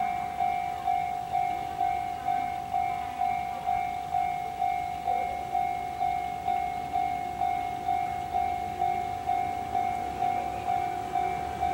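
Railway level-crossing warning bell ringing, a single clanging tone at about two strokes a second, each stroke dying away before the next. It warns that a train is approaching. The ringing stops near the end.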